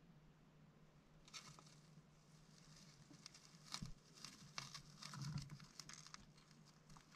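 Faint rustling and crackling with a few sharp clicks as a green bottle blue tarantula drags a superworm up through its silk web into its funnel retreat.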